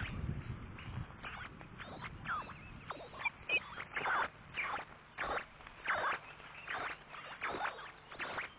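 Osprey calling: a steady series of short, high whistled calls, about two a second, heard through a nest webcam's microphone.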